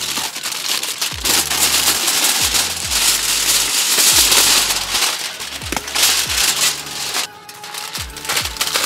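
Aluminium foil crinkling loudly as it is handled and folded, loudest between about one and seven seconds in. Under it plays electronic background music with a steady kick-drum beat.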